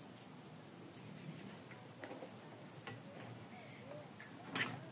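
Faint, steady high-pitched insect trill made of two held tones. Near the end comes a single sharp knock as a fishing rod is taken from its holder.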